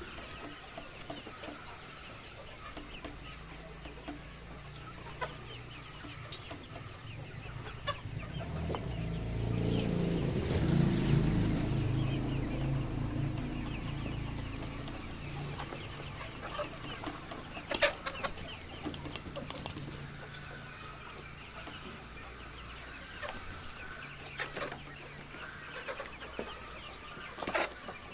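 Flock of laying hens clucking, over a steady low hum. A louder low rumble swells about a third of the way in and fades again.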